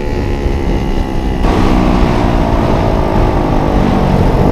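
70cc mini bike engine running under way, heard from the rider's seat, its pitch sagging slowly. About a second and a half in, a hiss of wind noise on the microphone rises sharply.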